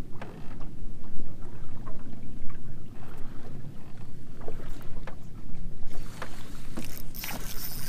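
Steady low rumble of wind on the microphone and water slapping against a fishing boat's hull, with scattered faint knocks and a louder rushing noise about seven seconds in.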